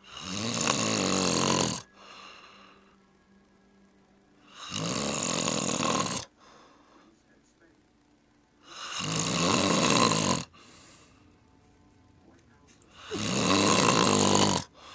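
A sleeping person snoring: four long snores, each about one and a half to two seconds long, coming roughly every four seconds, with faint breathing between them.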